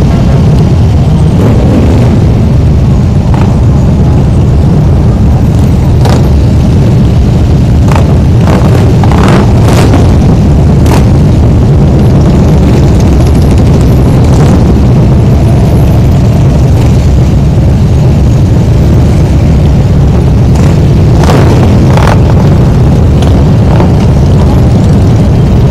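Many motorcycle engines running together in a slow-moving column, heard from on one of the bikes as a loud, steady low rumble, with a scattering of short sharp pops.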